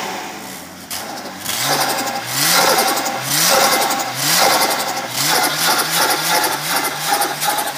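Turbocharged Nissan RB30 straight-six in a Holden VL Commodore. Its revs drop about a second in, then the throttle is blipped again and again, about two short rev rises a second. The title puts turbo flutter in this clip, the chatter of a turbo with no blow-off valve as the throttle closes.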